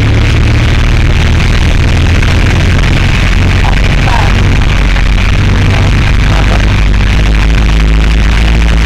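Loud, steady low rumble of a moving vehicle's engine and road noise, with music faintly underneath.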